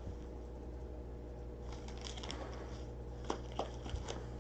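Trading cards being handled: faint rustling about two seconds in and a few light clicks near the end, over a steady low hum.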